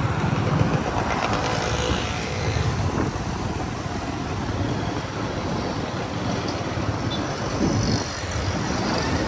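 Steady road-traffic noise heard from a moving vehicle on a busy town street: engine and tyre rumble, with motorbikes and other vehicles around.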